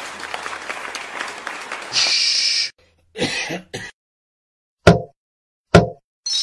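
Cartoon sound effects: audience applause that stops about two and a half seconds in, followed by throat-clearing and two short, sharp coughs about a second apart.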